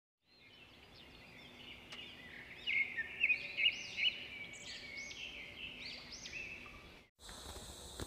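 Several birds singing, overlapping short rising-and-falling chirps, fading in at the start. About seven seconds in it cuts off and gives way to a steady shrill of crickets.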